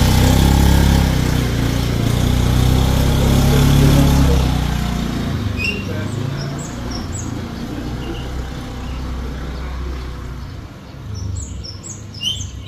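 Single-cylinder engine of a Honda Scoopy motor scooter pulling away with two riders aboard, loud for the first four seconds or so and then fading into the distance. Birds chirp in short calls through the second half.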